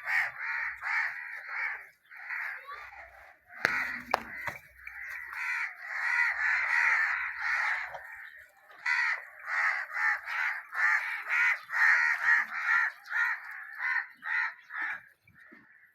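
Birds calling over and over, several short calls a second, with a single knock about four seconds in.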